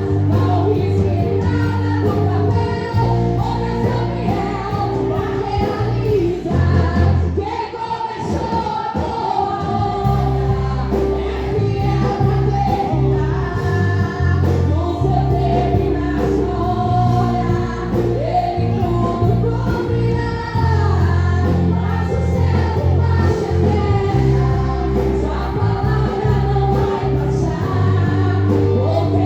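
Gospel worship song: a choir of voices singing over a band with a heavy bass line. The bass drops out for a couple of seconds about eight seconds in, then comes back.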